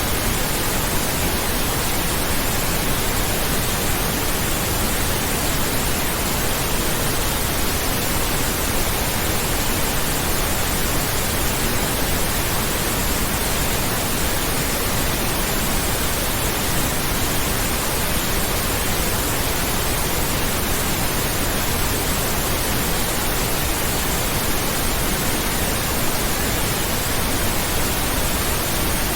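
Generated pink noise: a steady, even hiss spread across the whole range of pitch, unchanging throughout.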